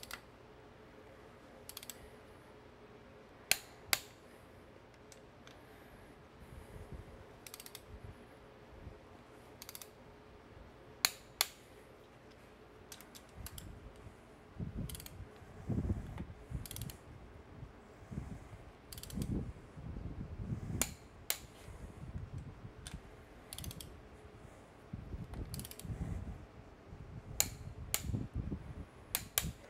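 Click-type torque wrench ratcheting and clicking on intake manifold bolts as they are tightened to spec: scattered sharp clicks, then low knocks and rubbing from the wrench and socket through the second half.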